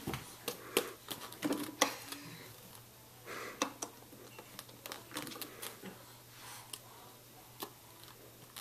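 Irregular light clicks and taps as a baby's hands knock a plastic toy ball and a plastic activity walker, more frequent in the first few seconds.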